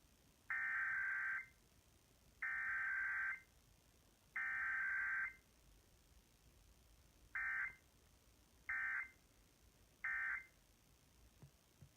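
Emergency Alert System SAME data tones broadcast for a Required Weekly Test: three buzzy digital header bursts of about a second each, then three short end-of-message bursts.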